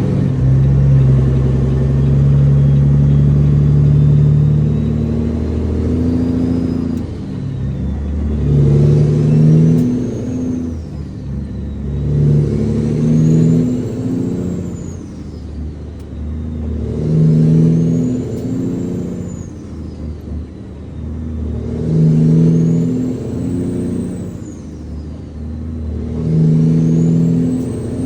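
Heavy truck's diesel engine pulling a load and working up through the gears. About every four to five seconds the engine swells and a high whine rises and falls with it, then drops back as the next gear comes in.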